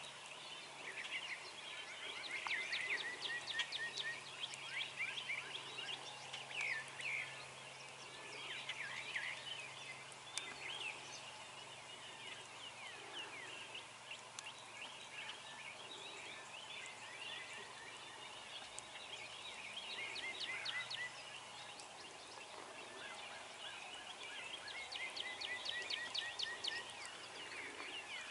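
Wild turkey gobbling amid a dawn chorus of songbirds, whose short chirps and repeated runs of evenly spaced notes are the loudest sounds throughout.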